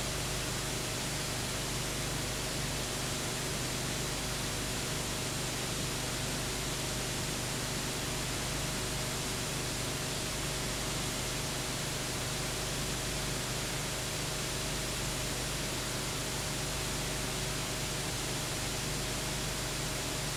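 Steady hiss with a faint low hum and nothing else: the background noise of a silent soundtrack on an old film transfer.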